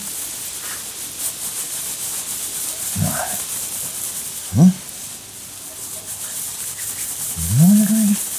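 Gritty scraping and rubbing of stones and sand being worked through. A man makes short wordless vocal sounds about three, four and a half, and seven and a half seconds in.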